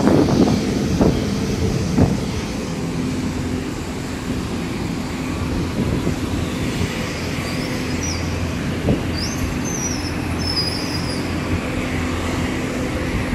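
Airport apron noise: a steady engine hum from ground service vehicles and equipment around a parked airliner, with a few knocks in the first two seconds and a faint high whine about seven to eleven seconds in.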